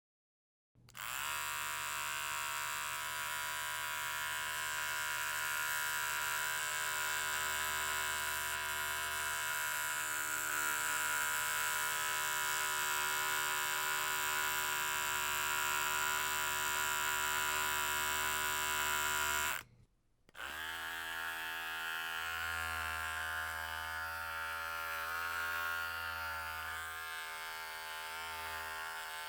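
Electric hair clippers running with a steady buzz. They cut off about twenty seconds in and start again half a second later.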